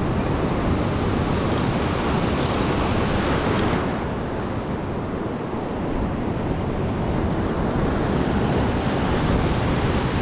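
Ocean surf washing steadily onto a sandy beach, easing a little about four seconds in and building again near the end.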